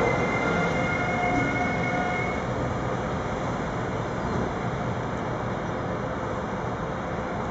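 Freight train with red Railion electric locomotives and coal hopper wagons running through a rail yard: a steady rumble of wheels on rails, with faint high squealing tones that fade out about two seconds in.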